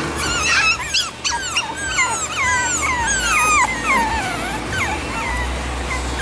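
Chihuahua puppies whining and yipping: a quick run of high cries, each falling in pitch, several a second.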